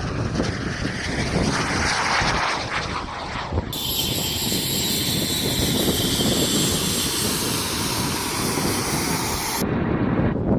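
Small jet aircraft flying its display, with engine noise and rushing air throughout. In the second half a high-pitched jet whine comes in suddenly and then cuts off abruptly.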